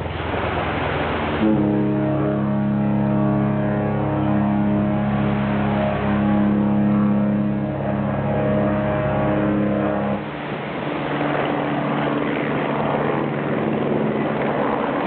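Cunard cruise ship Queen Victoria's horn sounding one long, low blast of several tones together, starting abruptly about a second and a half in and cutting off about ten seconds in. A fainter, lower tone lingers afterwards over a steady rushing noise.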